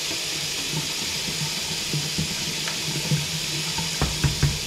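Kitchen tap running steadily into a stainless steel sink, with a few light knocks near the end.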